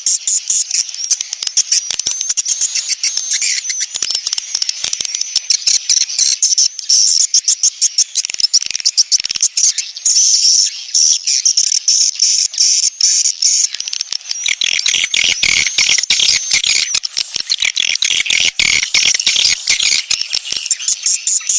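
Swiftlet calls: a dense, fast chattering of high twitters and clicks from many birds without a break. This is the 'sedot anakan' lure call, played to draw young swiftlets into a swiftlet house.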